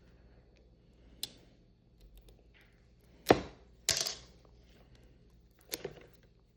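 A few sharp taps and knocks from a steelbook case being worked out of its packaging, the loudest about three seconds in.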